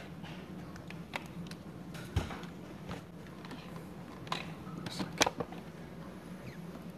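A computer keyboard being handled and shifted across a desk: scattered light knocks and clicks, the sharpest about five seconds in, over a low steady hum.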